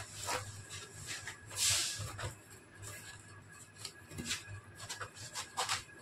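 Cardboard packaging handled as a copper-clad PCB sheet is slid back into it. There is rustling and light knocks, with one longer scraping slide just under two seconds in.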